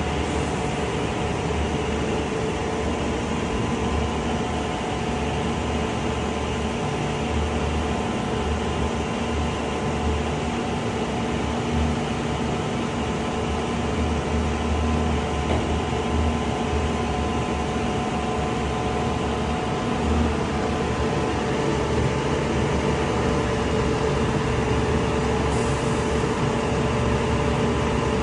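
Horyong PE700 truck-mounted moving ladder lift running: the truck's diesel engine turns steadily to drive the raised ladder. It is a continuous mechanical hum with a few steady tones over a low rumble that rises and falls slightly.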